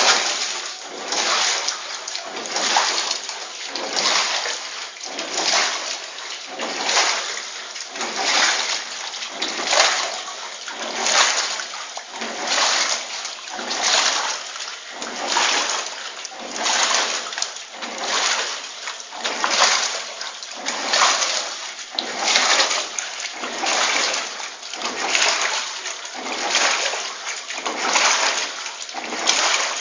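Water splashing and sloshing in the wave tank of a small laboratory wave-power prototype, in a regular rhythm of about one wave every one and a half seconds.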